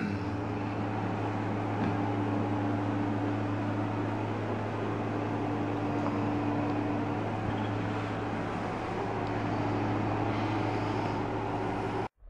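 Steady low hum with a hiss of background room noise; it cuts off suddenly near the end.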